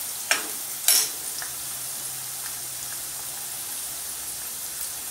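Potatoes frying in hot oil in a metal kadhai, a steady sizzle, with two sharp clinks of a steel ladle against the pan in the first second.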